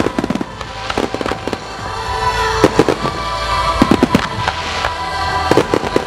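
A fireworks display with shells bursting and crackling, many sharp bangs coming singly and in rapid clusters. Music plays underneath. The sound is picked up on a camera's built-in microphone.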